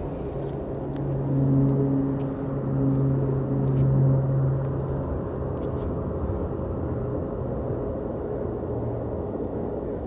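Boeing 737 jet engines rumbling as the airliner rolls along the runway: a steady low roar with a hum, swelling louder between about one and four seconds in.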